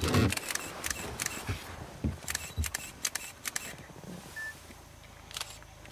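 Camera shutters clicking in rapid bursts. Several quick series of clicks are followed by a pause of about a second and a half, then one last short burst near the end.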